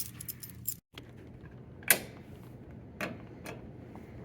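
Handling noise: a few short metallic clicks and jangles, the sharpest about two seconds in, over a low steady hum. The sound cuts out entirely for a moment just before one second.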